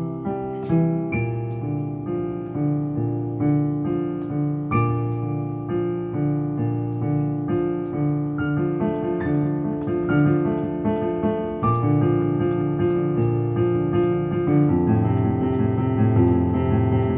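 Digital piano played solo: a melody over broken-chord accompaniment in the left hand, growing fuller and louder about twelve seconds in.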